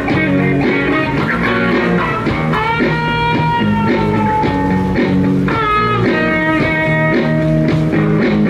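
Electric guitar music: long held lead notes over a steady low accompaniment.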